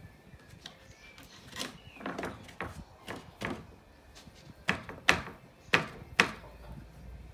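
Hammer striking a wooden shed floor panel: a string of irregular knocks, softer at first, then four louder blows in the second half.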